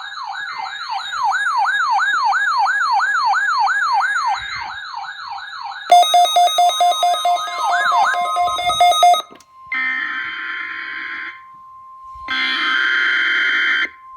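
An electronic siren alarm wails rapidly up and down for about six seconds, then switches to a fast pulsing two-pitch beep that stops after about three seconds. Next come two short bursts of harsh, buzzing digital data, the SAME header that opens a NOAA Weather Radio test alert, with a faint steady tone under them.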